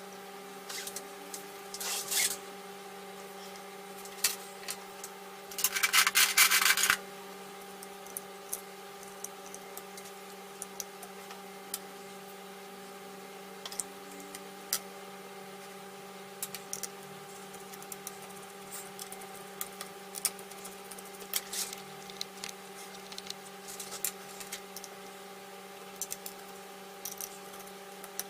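Small parts of a Toshiba Satellite L645 laptop being handled during disassembly: scattered light clicks and taps, with a louder rubbing sound for about a second around six seconds in, over a steady electrical hum.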